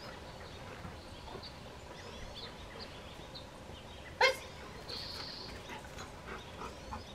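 A Rottweiler gives a single short bark about four seconds in. Faint bird chirps sound in the background.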